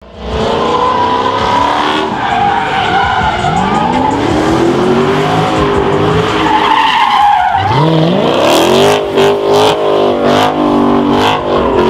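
Car doing donuts: the engine revs up and down while the tyres squeal, and the revs climb sharply about eight seconds in.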